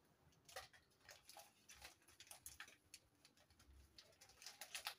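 Faint crinkling and light scattered clicks of small plastic packets being handled and torn open over a plastic basin.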